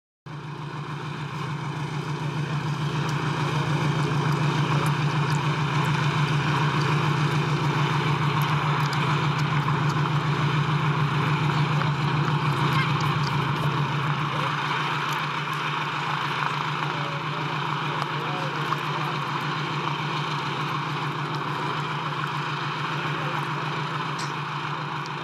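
Lockheed Hudson's radial piston engines running on the ground at low power, a steady, rapidly pulsing throb with propeller noise.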